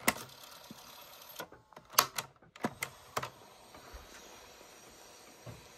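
QFX portable cassette recorder's piano-key buttons clicking: a sharp click as play is pressed, then several more sharp clicks about two to three seconds in. Between and after them a faint steady hiss as the cassette plays its quiet opening.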